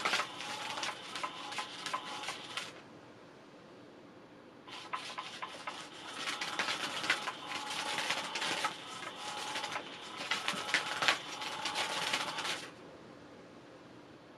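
Catch Me If You Can 2 electric cat toy running, its motor sweeping the wand round under the fabric cover with a whir and a rapid clatter of clicks. It runs in two bouts: the first stops about three seconds in, and the next starts about two seconds later, runs about eight seconds and stops.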